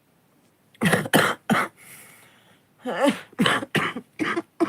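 A person's chest cough: three coughs in quick succession about a second in, a short pause, then a second fit of four or five coughs.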